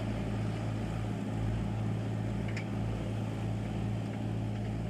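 Tractor diesel engine running steadily: a low, even drone that does not rise or fall.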